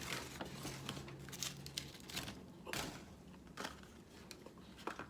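Crinkling and rustling of paper fast-food wrappers being handled close to the microphone, with scattered sharp clicks.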